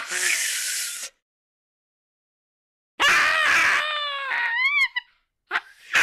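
Cartoon sound effects: a hissing burst of about a second, then after a pause a longer cry that wobbles up and down in pitch, then two short cries near the end.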